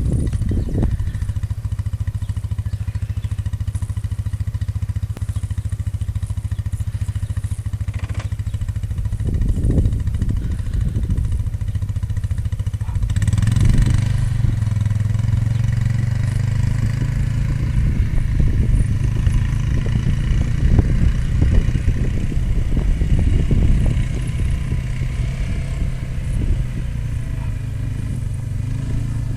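ATV engine running steadily at low speed, then picking up about halfway through and running louder and more unevenly as the quad is ridden.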